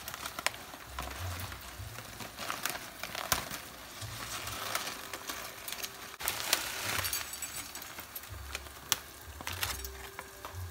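Plastic packet of dried rice vermicelli crinkling and rustling as the brittle noodles are pulled out and dropped into a pot, with many scattered sharp crackles and clicks.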